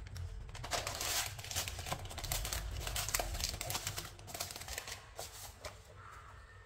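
Baking paper crinkling and crackling as it is pressed and folded into a round metal cake tin. The crinkling is dense for the first four seconds or so, then dies down.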